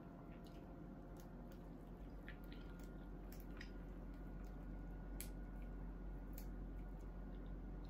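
Eating by hand: faint, irregular soft clicks and squishes as fingers pick apart a fried fish on a plate, mixed with chewing, over a steady low hum.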